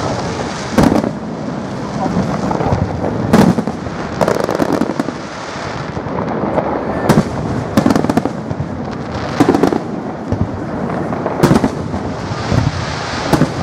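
Fireworks salute: about seven loud bangs of bursting shells, one to three seconds apart, over a continuous rumble and crackle of the display.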